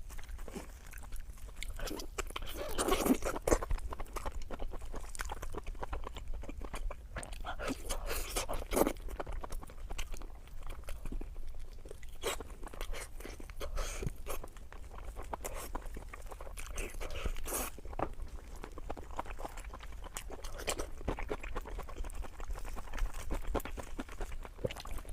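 Close-miked chewing of pork belly with crunchy cartilage: a steady run of small crunches and clicks as the mouthfuls are chewed.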